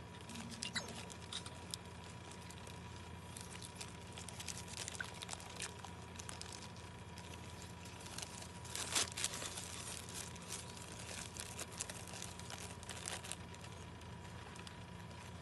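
Close-up mukbang eating sounds: irregular crackly crunches and crinkles, busiest and loudest about nine seconds in, over a faint steady hum.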